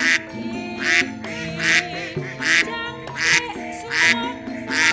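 Domestic ducks quacking: a loud, harsh quack repeating about every 0.8 s, seven in all, over background music.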